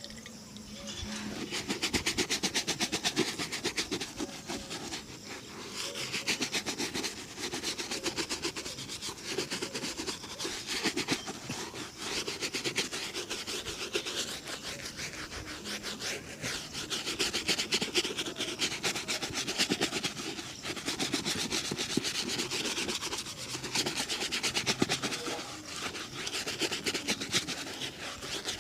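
A shoe being polished by hand: rapid back-and-forth rubbing strokes over the leather, coming in runs of a few seconds.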